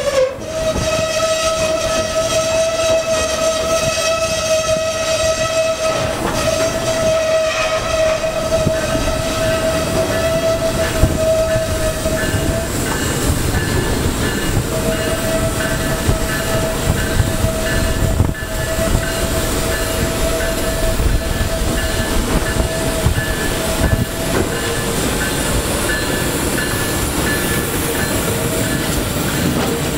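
Retired Budd R32 subway cars being towed slowly past on street track, wheels rumbling and clattering on the rails. A steady high-pitched tone sounds over it, breaks off about twelve seconds in, returns a couple of seconds later and fades near the end.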